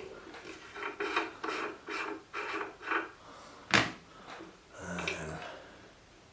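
Rhythmic scraping or rubbing strokes, about two a second, then a single sharp knock and a softer shuffle of handling.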